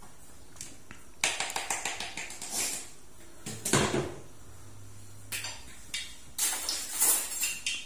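Kitchenware being handled at a sink: a plastic lid and dishes knocking and clattering in several short, separate bursts, the loudest knock a little before the midpoint.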